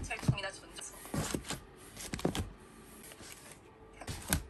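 Albums being placed and slid into a cardboard box: a few short knocks and scuffs, the loudest near the end.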